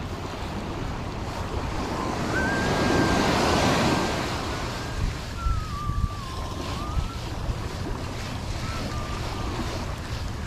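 Small waves washing up a sandy beach, with wind buffeting the microphone; one wash swells louder a couple of seconds in. A thin, wavering whistle-like tone comes and goes through the middle.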